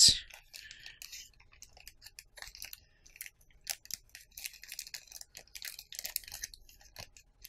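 Small clear plastic zip bag crinkling and rustling in the hands as it is turned over and opened: irregular soft crackles throughout.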